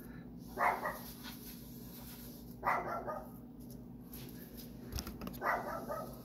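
A dog barking three times, a couple of seconds apart, over a steady low hum.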